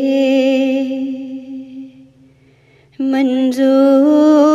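A woman singing an Urdu naat: she holds a long note with vibrato that fades out about two seconds in, and after a short pause begins the next sung phrase.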